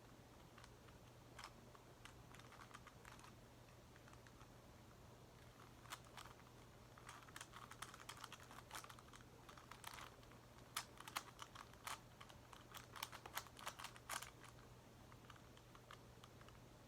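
Faint plastic clicking of a Megaminx puzzle's faces being turned, in irregular quick flurries, busiest in the middle and later part, over a steady low hum.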